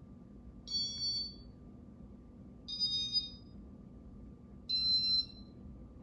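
Electronic chime of a Casablanca Panama ceiling fan's control sounding three short beeps about two seconds apart, each at a slightly different pitch, over a faint steady hum.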